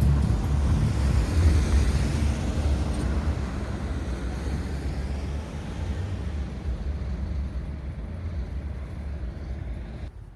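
A vehicle passing close by and moving away, its low rumble loudest at first and fading steadily over several seconds before dropping off near the end.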